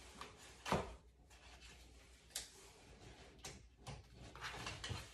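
Scattered light knocks and clicks with some rustling as packaging is handled inside a large cardboard box; the loudest knock comes about a second in.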